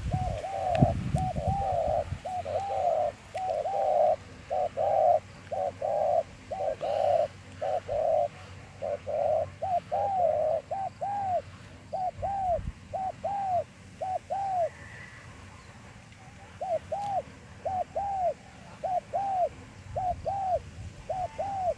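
Spotted doves cooing close by: short arched coos in twos and threes, repeated over and over, with a pause of a couple of seconds past the middle. A low rumble of wind or handling noise in the first couple of seconds.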